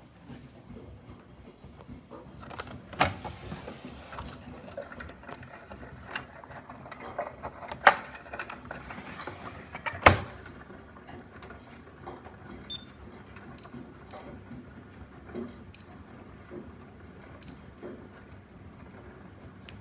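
Miele front-loading washing machines running, with irregular clicking and knocking from the drum and laundry. Three sharp knocks stand out, about 3, 8 and 10 seconds in, and a few faint short high pips sound in the second half.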